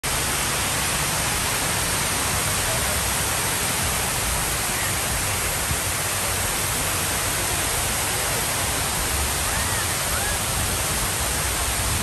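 Water sheeting down the tall ribbed wall of the Gerald D. Hines Waterwall fountain and splashing onto the stepped base: a steady, loud rush of falling water.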